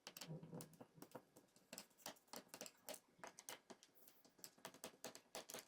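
Small screwdriver clicking and scraping as it backs the screws out of a laptop's plastic bottom panel: a quick, irregular run of faint light clicks.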